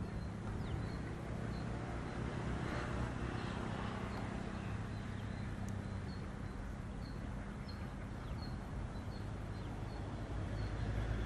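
Distant diesel locomotive engine giving a low steady drone that grows louder near the end as the train approaches. A small bird repeats a short high chirp throughout.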